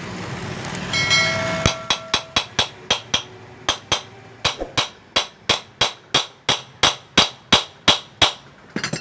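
Hammer tapping a ceiling fan motor's cover down onto its new bearing, about twenty sharp, evenly paced strikes at roughly three a second, after a short metallic ring about a second in.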